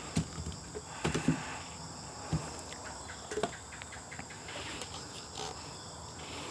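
Plastic pesticide bottles knocking and clicking as one is lifted out of a plastic basket and handled, a handful of sharp knocks in the first three seconds or so. Underneath, a steady high drone of insects.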